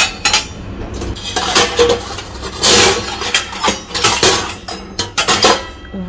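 Stainless steel pots, a mesh strainer, ladles and plates clinking and clattering against each other as they are handled in a dishwasher rack during unloading. Irregular metallic knocks, with a louder clatter about three seconds in.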